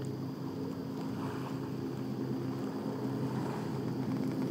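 A small boat motor running steadily at one even pitch, under a light hiss of wind on the microphone.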